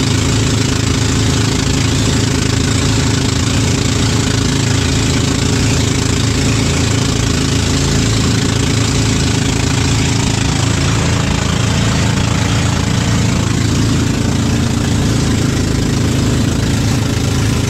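The engine of a small passenger boat running steadily at speed with a fast, even pulse, over the constant rush of water and spray along the hull in rough sea.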